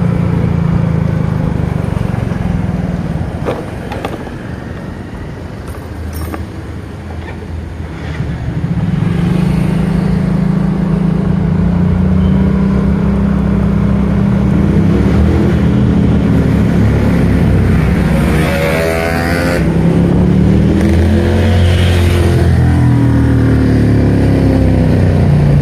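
Motorcycle engine running while being ridden, its note rising and falling with the throttle. It drops quieter for a few seconds about four seconds in, then picks up again, with rising and falling revs in the second half.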